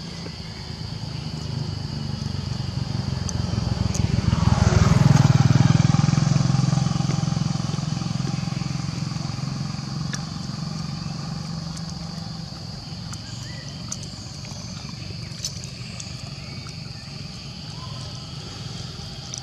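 A motor vehicle driving past on the road, its engine sound building, loudest about five seconds in, then fading away.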